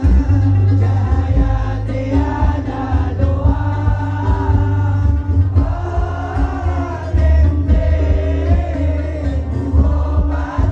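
A male voice sings an Arabic devotional qasidah into a microphone, with long ornamented, sliding phrases. Behind him an amplified gambus band plays a deep bass line and drums.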